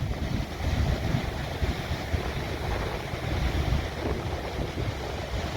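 Heavy storm surf, a steady low rumble of breaking waves, with wind buffeting the microphone in uneven gusts.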